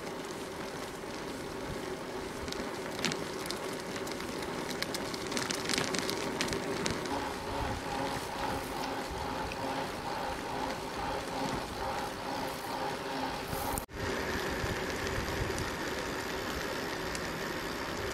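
Bicycle rolling along a paved path, heard from a handlebar-mounted camera: a steady hiss of tyres on asphalt with wind noise and a faint hum, broken by a brief dropout about fourteen seconds in.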